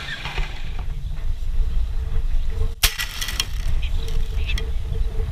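Wind buffeting the microphone as a low, uneven rumble. About three seconds in comes a sharp click, followed by a few light ticks and taps.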